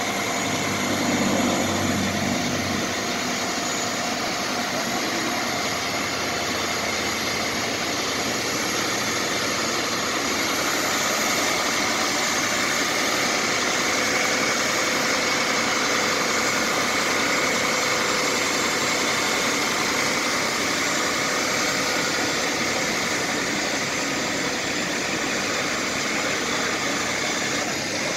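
John Deere 9470RX four-track tractor's diesel engine running steadily as the tractor drives and turns.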